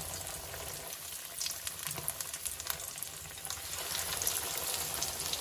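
Breaded chicken cutlets sizzling and crackling in olive oil heated to 360°F in a frying pan as they are laid in. The frying grows a little louder about two-thirds of the way through.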